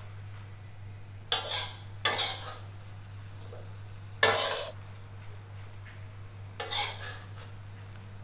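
Metal spatula scraping and clattering against a wok while stir-frying rice vermicelli: four short scrapes a second or two apart, over a steady low hum.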